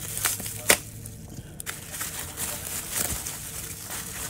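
Light handling noises: a few sharp clicks, the loudest under a second in, and some soft rustling as a knife and its packaging are picked up and turned over.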